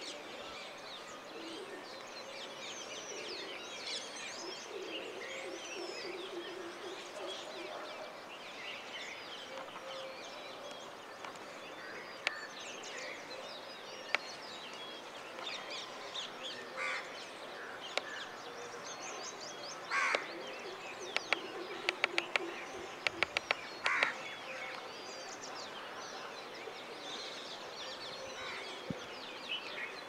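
Morning chorus of many birds chirping and calling over one another, with crows cawing now and then. About two thirds of the way through, a quick series of sharp clicks.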